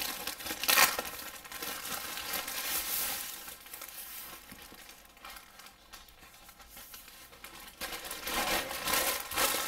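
Plastic packaging crinkling and rustling as it is handled: a poly mailer bag and an inflatable air-column cushion wrap. There is a sharp, loud crinkle about a second in, quieter rustling in the middle, and more rustling near the end.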